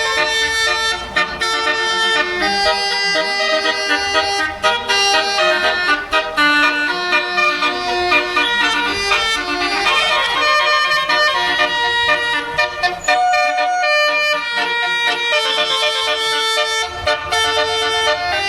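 A bus's Basuri multi-tone telolet horn playing a tune of held notes that change pitch one after another, with a bus engine rumbling underneath.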